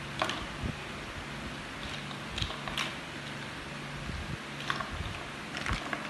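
Hard plastic toy building blocks and a wheel piece clicking and knocking as they are handled and snapped together into a toy car: a handful of short, sharp clicks over a steady low hum.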